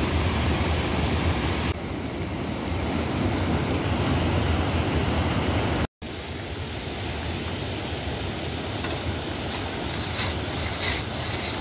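Steady rush of rain-swollen water flowing in a rocky stream and a muddy irrigation channel. The sound cuts out for an instant about six seconds in and comes back a little quieter, with a few faint clicks near the end.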